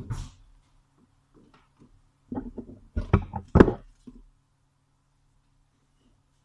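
A quick run of knocks and clatters from kitchen objects being handled and set down. They start about two seconds in, and the loudest comes about three and a half seconds in.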